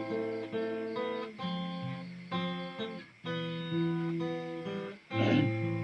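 Acoustic guitar playing a slow run of single notes, with a louder strummed chord near the end.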